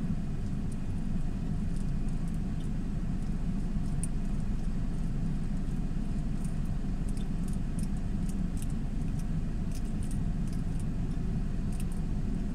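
Steady low rumble of a car, with faint scattered light ticks over it.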